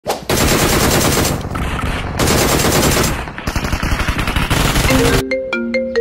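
Several loud bursts of rapid machine-gun-like fire. About five seconds in they stop, and a mobile phone ringtone starts: a marimba-like melody of short notes.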